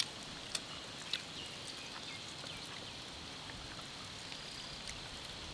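Faint outdoor background with a steady high insect drone, and a few soft clicks from hands pulling grilled beef rib meat off the bone.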